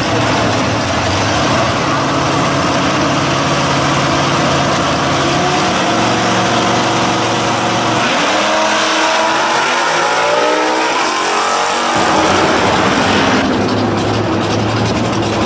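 Two drag cars' engines running loud at the starting line, then about eight seconds in they launch and their engines climb in pitch as they accelerate away down the strip. Near the end the sound changes to another pair of cars' engines running steadily at the line.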